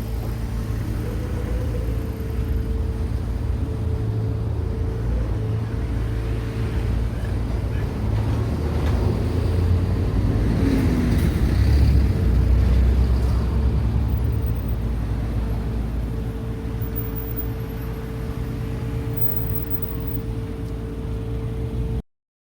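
Road traffic at a signalled junction: vehicle engines running with a steady low rumble and hum, swelling in the middle as a vehicle passes close by, then cutting off suddenly near the end.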